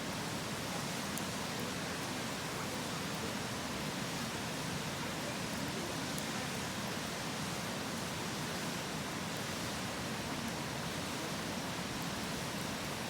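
Steady rush of a river, with a few faint crackles from a wood campfire.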